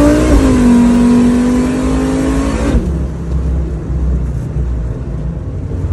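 Turbocharged GM Vortec 3500 inline five-cylinder accelerating hard at high revs, heard from inside the car's cabin. The engine note dips once just after the start and climbs again, then cuts off sharply nearly three seconds in as the throttle closes, leaving a low rumble.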